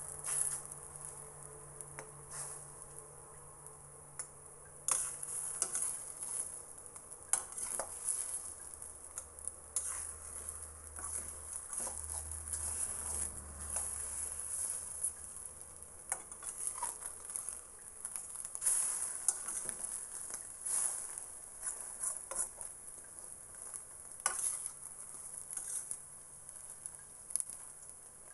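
Egg omelette frying in a metal wok, sizzling steadily, while a metal spatula scrapes and knocks against the pan in irregular strokes as it turns and breaks up the egg.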